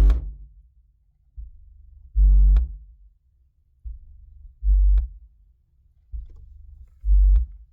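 Car subwoofers playing a deep bass tone that cuts in and out in a repeating cycle: a quieter low hum, then a loud bass pulse with a click, then a drop-out, three times about every two and a half seconds. The cutting out is a sign of the amplifier struggling, which the owner suspects is from too low a supply voltage.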